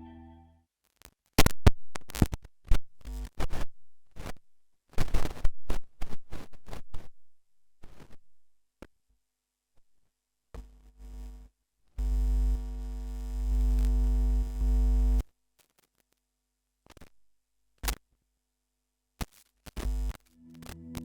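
Signal from a faulty Sennheiser MD 412 microphone under test: scattered crackles and clicks, then about three seconds of loud mains hum a little before the middle, then more crackles. The microphone is not working properly, and the input jack is the suspected fault.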